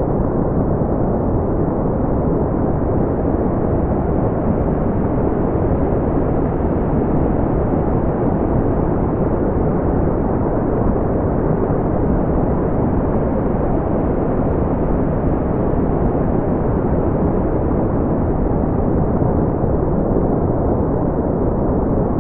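Steady brown noise: a deep, even hiss with most of its weight in the low end, thinning out toward the higher pitches, without any change or break.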